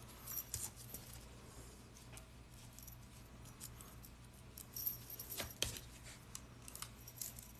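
Faint clinks and small jingles of 14-gauge steel jump rings being handled and hooked together by hand, a scattering of light metal clicks with a short run of them about five seconds in.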